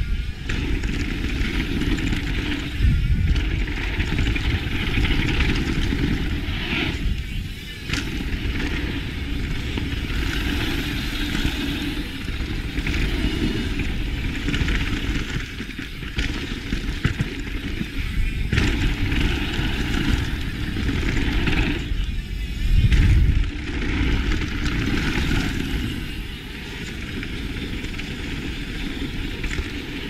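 Mountain bike tyres rolling fast over hardpacked dirt and wind rushing over a GoPro HERO7 Black's built-in microphone, a continuous rumbling rush. It swells into heavier low rumbles about three seconds in and for about a second roughly three quarters of the way through.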